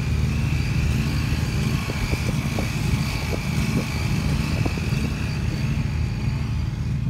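A zero-turn riding mower's engine running steadily at an even speed, with a steady high whine over it. A few short knocks come in the middle.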